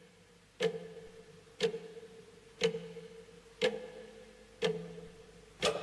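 Clock ticking, one tick a second, six in all, each tick with a short ringing tone after it. It counts down the last seconds to nine o'clock.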